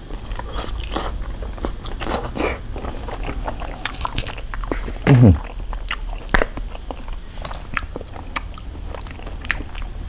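A person chewing a mouthful of soy-sauce-pickled raw salmon, with wet smacking clicks. One louder sound that drops in pitch comes about halfway through.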